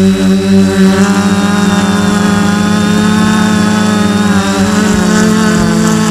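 F450 quadcopter's four electric motors and propellers running loudly at hover, heard close up from a camera on the frame: a steady multi-tone hum whose pitch shifts slightly near the start and then holds nearly level.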